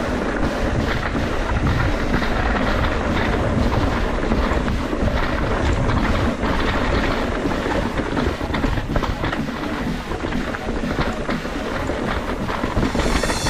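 Wind buffeting the microphone of a riding mountain biker, with the bike's tyres and frame rattling over rough trail at speed.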